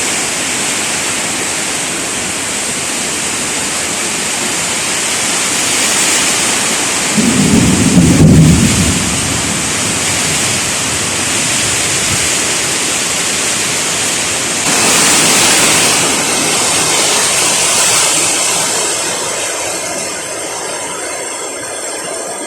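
Heavy tropical rain pouring steadily in a thunderstorm. A low roll of thunder rumbles for about two seconds around a third of the way in. The rain grows louder about two-thirds through, then slowly eases.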